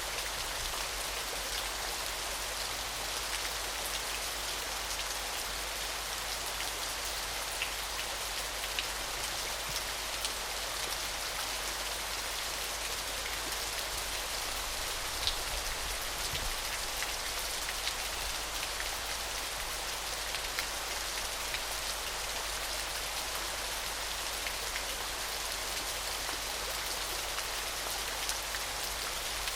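Small waterfall splashing in a steady, even hiss, with fine droplet ticks scattered through it.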